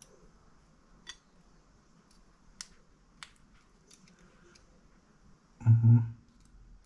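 A few faint, sharp clicks of small plastic wire connectors being handled and pushed into a model car's dashboard part. A little over five and a half seconds in comes a man's short hum, the loudest sound.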